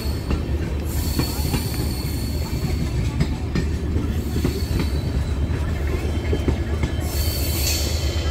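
LHB passenger coaches of an express train rolling past on the track: a steady low rumble with wheels clicking over rail joints.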